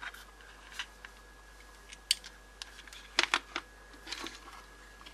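Light plastic clicks and taps from handling a cordless-phone battery pack and a clip-on battery charger with a spring-loaded clear plastic clamp, a few scattered clicks with a quick cluster about three seconds in.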